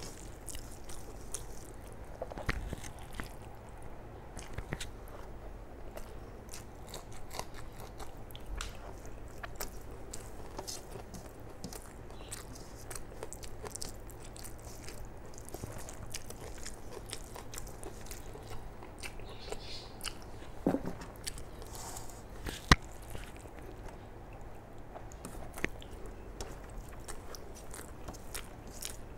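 Close-up chewing and mouth sounds of someone eating rice and curry by hand, with many small wet clicks and smacks and fingers working rice on a steel plate. A single sharp click stands out about three-quarters of the way through.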